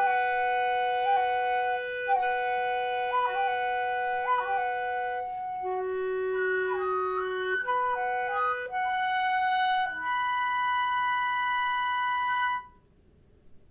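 Flute and clarinet duet playing sustained notes in two parts, decorated with quick grace-note flicks. The music ends on a long held note that stops about a second before the end.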